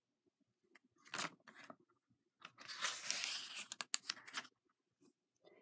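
A paper page of a picture book being turned. There are two short rustles about a second in, then a longer papery rustle lasting about two seconds with a few sharp ticks as the page goes over.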